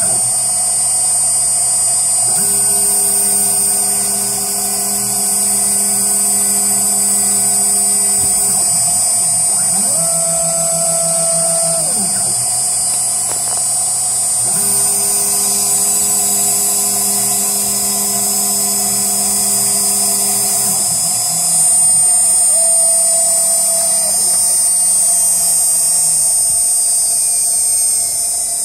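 CNC router cutting a PCB with a V-bit: the spindle runs with a steady high whine while stepper motors drive the axes in a series of separate moves, each one's tone gliding up as it starts and down as it stops.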